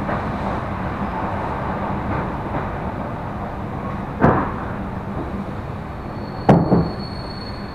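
Electric commuter train running, heard inside the carriage: a steady rumble of the train on the track, broken by a sharp knock about four seconds in and a double knock near the end, the second joined by a brief thin high whine.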